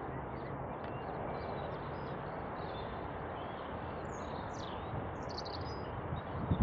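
Small birds chirping briefly about two thirds of the way through, over a steady outdoor background rush with a faint low hum.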